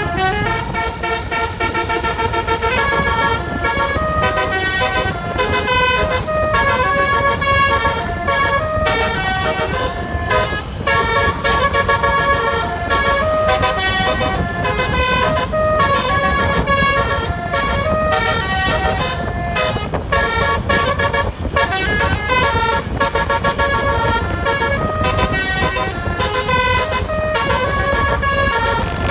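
Bus 'telolet basuri' multi-trumpet horn playing a fast melody, its notes changing several times a second, over a steady low rumble.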